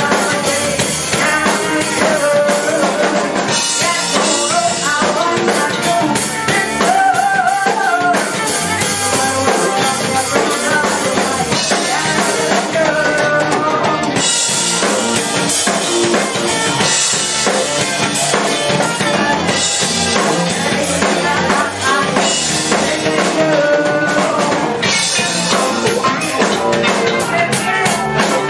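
Live rock band playing loud: drum kit, electric guitar and bass, with a trumpet and a vocalist on microphone over the top.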